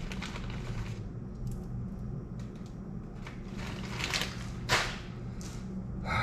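Scattered handling noises of hands and tools working on the underside of a washing machine: light clicks, scrapes and rustles, with one sharper knock a little before the end, over a steady low hum.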